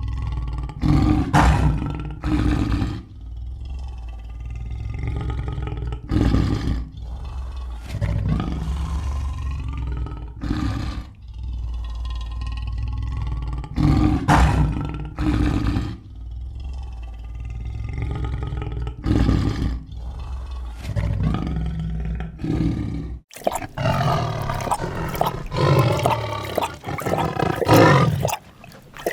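A large animal's deep, repeated roaring calls over a low rumble, coming every few seconds. About 23 seconds in, the sound cuts suddenly to a different, brighter animal call.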